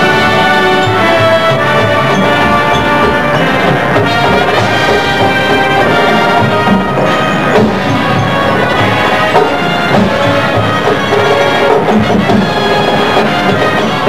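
Marching band playing: brass chords over drums and percussion, continuous throughout.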